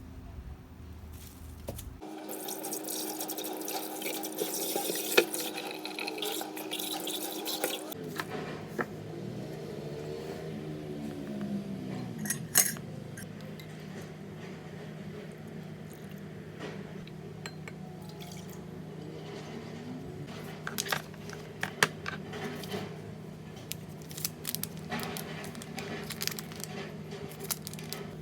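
Water running from a kitchen tap for about six seconds, starting a couple of seconds in. It is followed by a steady low hum with scattered light clicks and knocks of kitchen handling.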